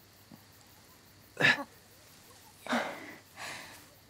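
A person's short, sharp gasp about a second and a half in, followed by two heavier breaths.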